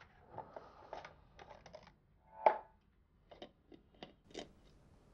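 Screw lid of a stainless steel food flask being twisted open by hand: a run of small clicks and scrapes, with one louder short sound about halfway through.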